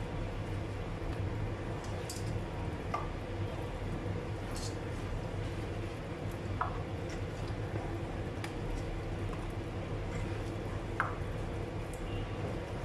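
Hands mixing marinated chicken pieces and chopped vegetables in a pot, with a few soft, wet squelches and clicks now and then over a steady low hum.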